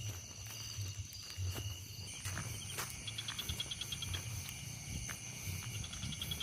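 A night chorus of crickets and other insects: several steady high-pitched trills, with two short runs of rapid chirps in the middle and near the end. Irregular low thuds, about two a second, run underneath.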